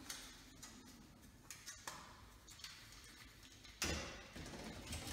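Faint scattered clicks and taps from hands and tools working on a smoke alarm being fitted, with a louder knock and rustle about four seconds in.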